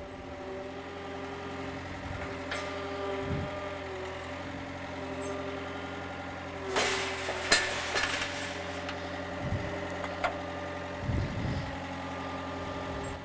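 Skid loader engine running steadily while its quick-attach plate is driven under and hooked onto a steel basket's mounting plate. A short burst of sharp metal clanks comes about seven seconds in, with lighter knocks before and after.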